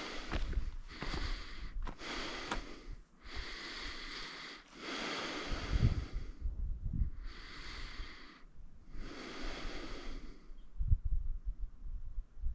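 A hiker breathing heavily, long noisy breaths in and out every second or two, with a few low thumps and light clicks in between.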